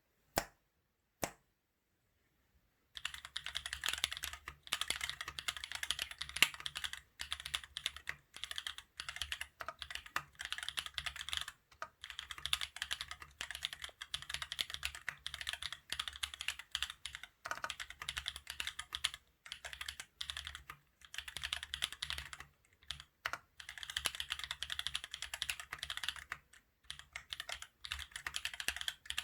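Mechanical keyboard with Holy Panda tactile switches on a carbon fiber plate in an aluminium case, typed on fast and continuously. Two single key clicks come first, then steady rapid typing starts about three seconds in, broken by brief pauses.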